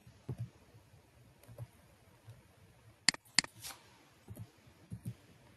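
Quiet, sparse keystrokes on a computer keyboard, with two sharper clicks about three seconds in.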